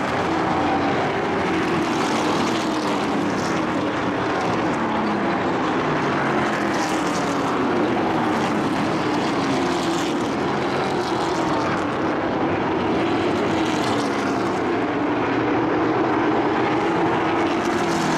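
A field of racing pickup trucks' engines running at speed around an oval track: a steady drone of several engines at once, their pitch rising and falling as the trucks come past and go around.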